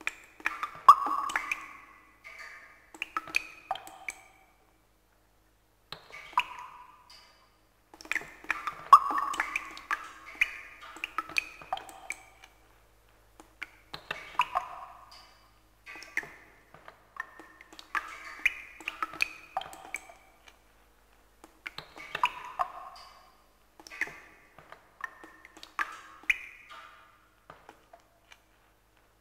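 Short pinging notes, each with a sharp start and a brief ring, played in clusters separated by short silences.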